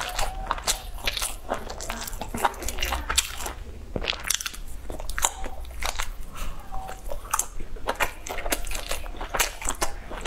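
Close-up eating sounds: pieces of skewered sausage and balls bitten off bamboo skewers and chewed, with many quick wet smacks and crunchy clicks.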